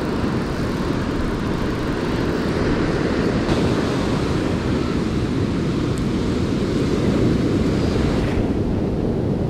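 Steady wind rumble on the microphone mixed with the hiss of surf washing up the beach.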